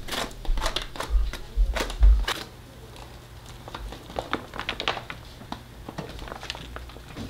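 Plastic rice sack crinkling and crackling in short irregular clicks as steamed purple sticky rice is worked with a rice paddle on top of it, with a few dull thumps in the first two seconds or so.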